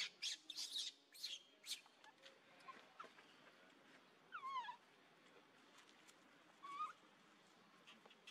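Baby macaque crying: a quick cluster of high squeaks in the first two seconds, then a wavering, falling cry about four and a half seconds in and a short cry near seven seconds.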